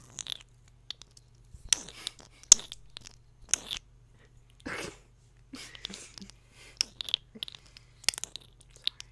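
Close-miked ASMR trigger sounds: irregular crisp clicks and crackles, with one short breathy whoosh about five seconds in.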